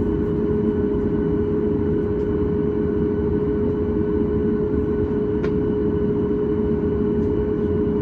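Cabin noise inside a Boeing 737 MAX 8 with its CFM LEAP-1B engines running at low power: a steady low rumble with one constant whining tone on top, unchanging throughout, and a light click about five and a half seconds in.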